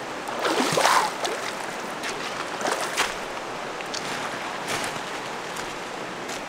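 Water splashing in a flowing stream: a few irregular splashes, the loudest about a second in, over a steady rush of water.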